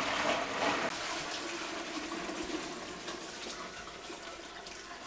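Beef-trotter broth poured from a stainless steel tray into a large stainless steel stockpot: a heavy pour of liquid, strongest in the first second, then thinning out as the tray empties.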